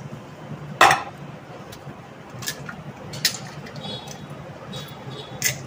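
Eggs being cracked on the rim of a steel bowl and their shells pulled apart: one sharp crack about a second in, then a few lighter taps and clicks, over a faint low hum.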